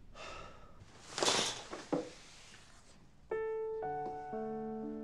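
Duvet rustling as the covers are pushed back on getting out of bed, loudest just over a second in. About three seconds in, soft piano music begins with held notes.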